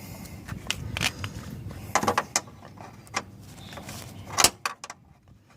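Scattered metallic clicks and clinks of a socket wrench being fitted to and turning a 10 mm bolt on the car's front airbag sensor mount. The loudest clink comes about four and a half seconds in.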